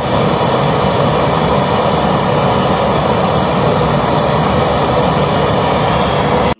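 Gas blowtorch running with a steady loud roar, its flame heating gold in a clay crucible for melting. It cuts off suddenly at the end.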